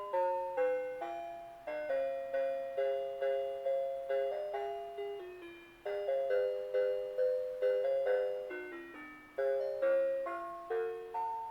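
Christmas Fantasy Wonderland Skaters Pond (1996) playing a Christmas tune from its built-in music: a simple melody in bright, chime-like notes, each struck sharply and fading, about two notes a second.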